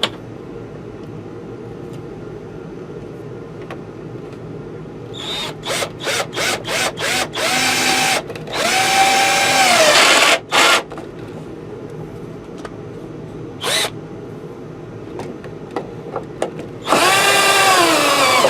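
Power drill driving screws into wood. It starts with a string of short trigger bursts about five seconds in, then gives a couple of longer runs and a brief blip. There is a final long run near the end, with the motor's pitch sagging as the screw bites and the drill slows.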